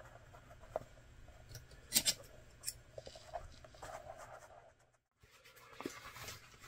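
Soft rustling and rubbing of leather and thread being handled, with a few light ticks and taps, the sharpest about two seconds in, as a knot is tied off at the end of a hand-sewn leather seam.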